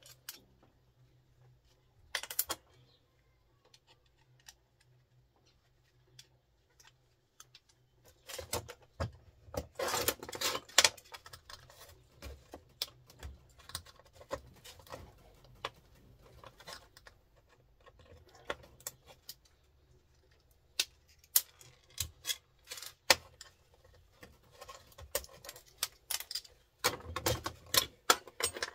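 Small metal tools and parts clicking and clinking on a workbench as a screwdriver and pliers work at microwave circuit boards and components. Irregular taps, in a busy flurry about a third of the way in and again in the last few seconds.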